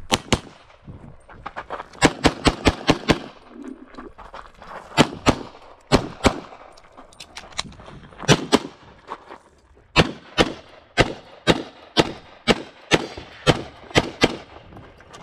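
Semi-automatic pistol firing about two dozen shots, mostly in quick pairs, with a fast string of about seven shots around two seconds in and short pauses between groups.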